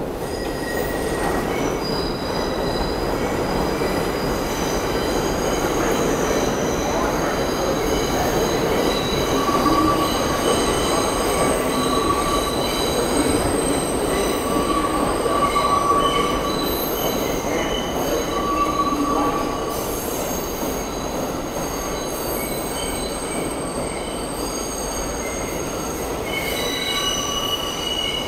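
New York City subway train pulling out into the tunnel, its wheels squealing in several high tones that shift and overlap over the rumble of the cars. The rumble is loudest about midway and eases after that as the train draws away.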